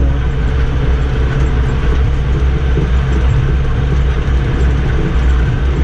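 Tractor engine running steadily while pulling a round baler through hay, a constant low drone.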